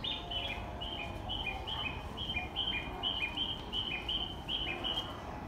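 Bird chirping: a fast, regular run of short high chirps alternating between a higher and a slightly lower note, about four a second, stopping shortly before the end.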